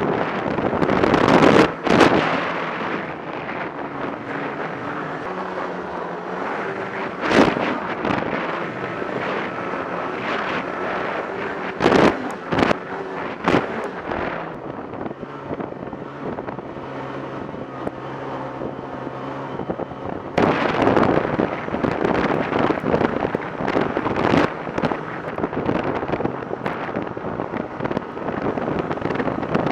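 Snowmobile engine running steadily at travel speed, heard from the machine itself, with wind buffeting the microphone. Several sharp knocks break through, and the wind noise grows louder about two-thirds of the way in.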